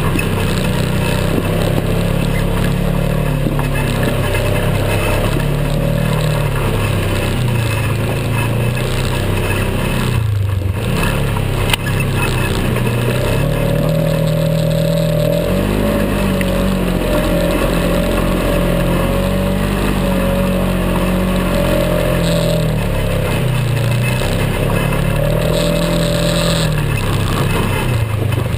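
A Polaris RZR XP 900's twin-cylinder engine runs under changing throttle as the side-by-side climbs and drops over rough rocky tracks. Its pitch rises and falls repeatedly, with a brief lift-off just after ten seconds in.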